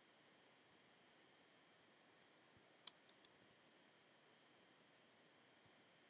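A few sharp clicks from a computer keyboard and mouse over faint room hiss: one about two seconds in, then a quick run of four around the three-second mark.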